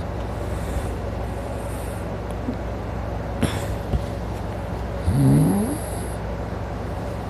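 A sleeping man snoring: one loud, drawn-out snore about five seconds in, with a brief sharp snort-like sound a little before it, over a steady low hum.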